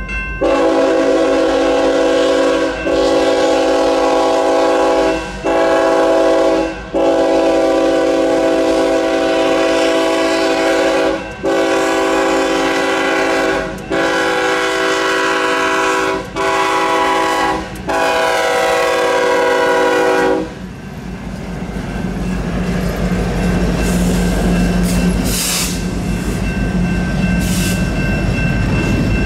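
BNSF freight locomotive's air horn blowing the grade-crossing signal, long-long-short-long, twice over for about twenty seconds, as the train nears the crossing. The horn then stops and the train's diesel engines and wheels rumble past.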